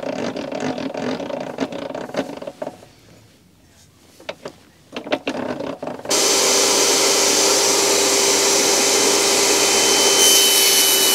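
Wood knocked and slid across a table saw's metal top, with a few sharp clicks. About six seconds in, the portable jobsite table saw starts running loud and steady with a fixed whine, and a board is fed through the blade near the end.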